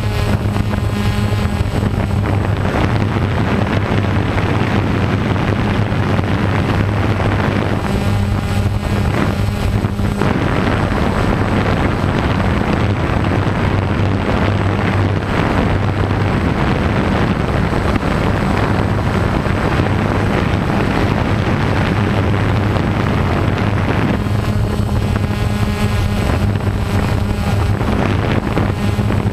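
Camera drone's motors and propellers humming steadily in flight, with a low hum under a rushing haze of wind noise. A higher whine comes in briefly about eight seconds in and again near the end.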